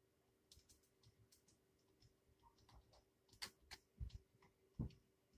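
Near silence broken by faint, irregular clicks and taps, with a few louder, duller knocks in the second half.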